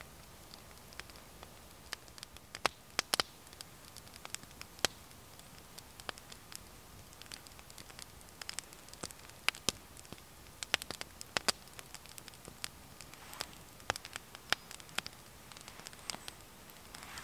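Small wood fire crackling, with irregular sharp pops and snaps, some of them in quick clusters.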